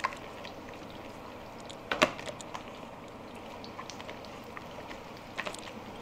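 Steady sizzle of food frying in hot oil, with scattered light clicks and one sharper knock about two seconds in.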